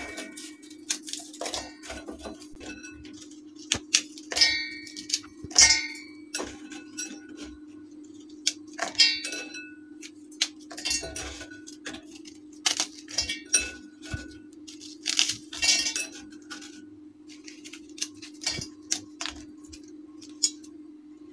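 Biscuit pieces broken by hand and dropped into a stainless-steel mixer grinder jar, giving irregular clinks and taps against the metal, some with a short ring. A steady low hum runs underneath.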